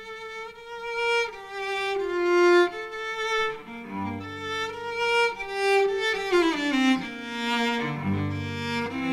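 Cello played with the bow: a melodic line of held notes, with a quick descending run about six seconds in that ends on low notes.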